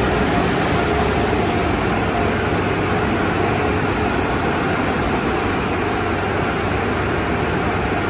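MacNeil/PECO mini tunnel car wash running: spinning wash brushes and water spray make a steady dense rush with a low hum underneath.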